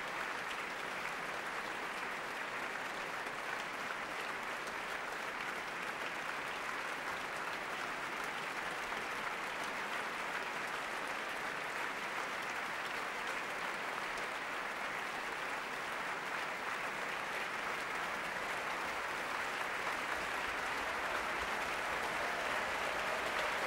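Large audience in a concert hall applauding steadily, the clapping swelling a little near the end.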